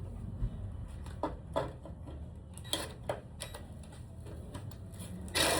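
Scattered light clicks and knocks of tools and hardware being handled during a ladder repair, then a short, louder rushing burst near the end.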